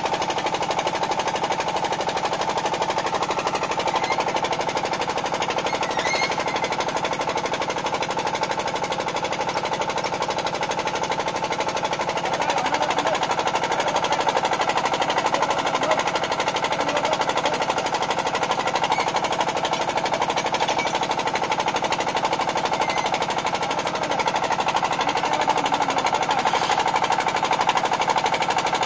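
Small engine of a portable borehole drilling rig running steadily, with a fast, even knocking beat.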